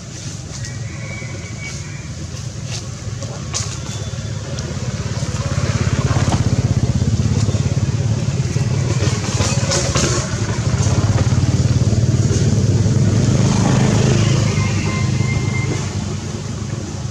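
An engine running, with a low pulsing rumble that swells from about five seconds in and eases off near the end. Light clicks and crackles sound over it.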